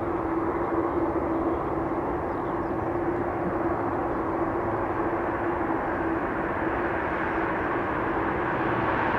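Boeing 747-400's four turbofan engines running at low thrust as the airliner rolls slowly onto the runway: a steady jet rumble with a single steady whining tone, growing slightly louder near the end as the engines begin to spool up for takeoff.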